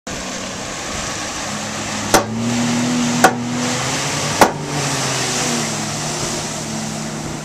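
Sea-Doo RXP-X personal watercraft's supercharged four-stroke engine running under throttle as the craft pulls away, with the hiss of water spray and wake. Three sharp clicks about a second apart are the loudest sounds.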